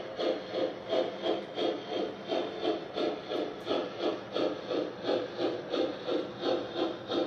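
Steady rhythmic steam chuffing from a model Santa Fe 5011-class steam locomotive's electronic sound system, about three chuffs a second, keyed to the turning wheels as the engine runs at an even speed. A faint steady hum runs underneath.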